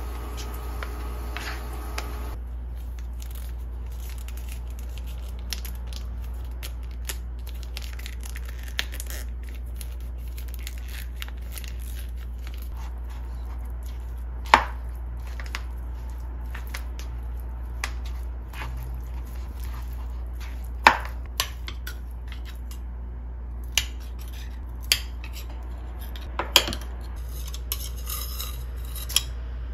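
Dishes and cutlery clinking and tapping now and then, with three louder, ringing clinks spread through the stretch, over a steady low hum.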